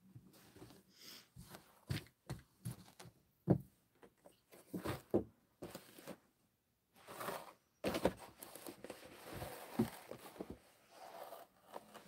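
Cardboard toy box being picked up and handled, with irregular knocks and bouts of rustling and scraping.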